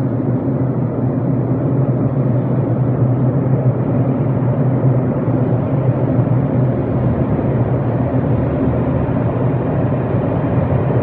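Underground railway station ambience: a steady low rumble and hum that holds even throughout, with no train passing the platform.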